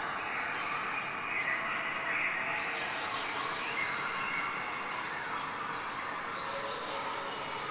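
Outdoor background: a steady hiss with many small birds chirping throughout.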